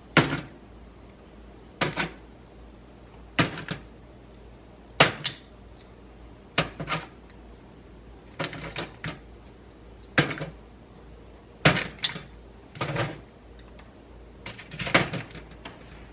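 A kitchen utensil knocking sharply against cookware, about every second and a half, often two or three knocks close together.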